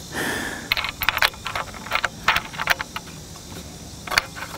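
Small metal clicks and rattles of a nylon-insert lock nut and washer being threaded by hand onto a bolt through a steel hinge bracket: a quick run of clicks in the first few seconds, then one more click near the end.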